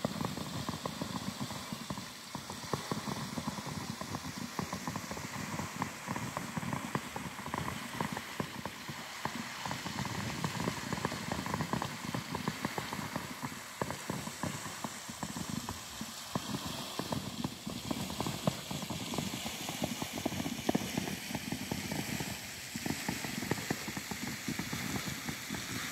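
Footsteps walking along a park path: a continuous run of small scuffs and crunches, over a steady hiss of outdoor air.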